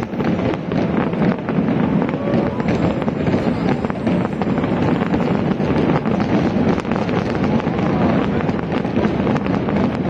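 Fireworks display: a continuous dense crackle of many small bursts and pops, with no single big bang standing out.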